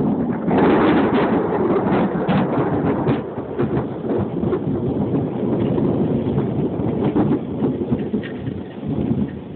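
Thunder rumbling through steady heavy rain. A sharper crackling peal breaks in about half a second in and eases off over the next few seconds into a continuing rumble.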